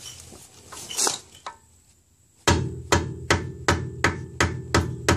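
Hammer blows on a flat-blade screwdriver set against the staked collar of an axle hub nut, bending the collar back so the nut can come off, each strike ringing through the hub. A couple of blows come early, then a pause, then a steady run of about three blows a second from about halfway.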